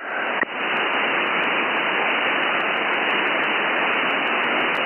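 Steady hiss of receiver noise from a software-defined radio demodulating single sideband with no voice on the signal. The hiss is dull, without the highest treble, and dips briefly about half a second in.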